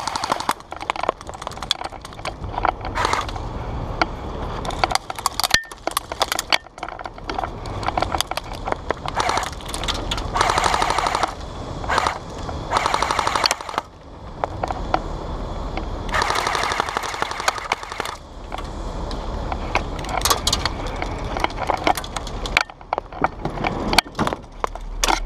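Airsoft guns firing in rapid bursts: a dense run of sharp clicks and cracks that comes in thicker volleys several times.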